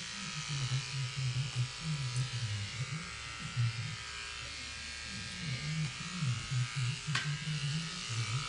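Electric hair clippers buzzing steadily as they shave a woman's scalp down to stubble. There is a short tick about seven seconds in.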